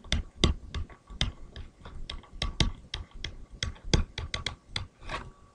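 Stylus clicking and tapping on a pen tablet during handwriting: a rapid, irregular run of small sharp clicks, several a second.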